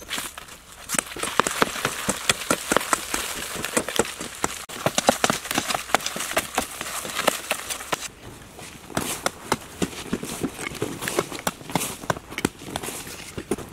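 Hands scraping and scooping dry, dusty soil: a fast, irregular run of gritty scratches and small knocks, easing off briefly about eight seconds in.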